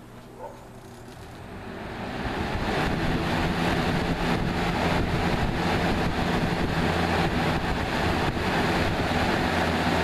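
1999 Lasko 3733 box fan spinning up on its high setting: the rush of air builds over the first two to three seconds, then runs steadily with a low motor hum.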